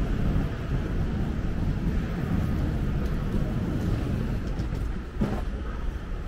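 Steady low rumble of city street traffic, with a single brief knock about five seconds in.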